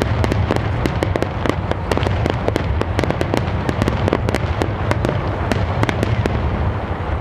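Large star-mine fireworks barrage: shells bursting in rapid succession, dense sharp bangs and crackles over a continuous low rumble, the bangs thinning out near the end.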